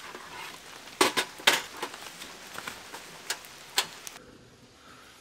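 Sharp clicks and knocks of a portable camp stove and its hard case being handled and set down on a wooden folding table, over a steady hiss. The two loudest knocks come about a second and a second and a half in, with lighter clicks after; the hiss drops away abruptly a little after four seconds.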